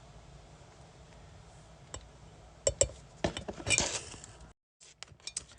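Kitchen utensils clinking and tapping as a tablespoon of powdered seasoning is measured out: a series of short, sharp clinks, bunched together from about halfway in.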